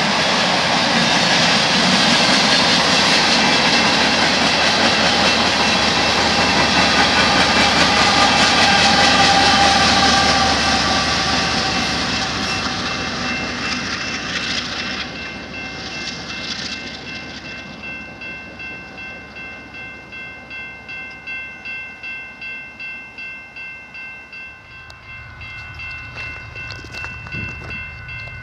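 Freight train of autorack cars rolling past with a loud, steady rumble of wheels on rail that fades off about halfway through as the end of the train moves away. A railroad crossing bell then rings steadily, about two strikes a second, and a low rumble comes in near the end.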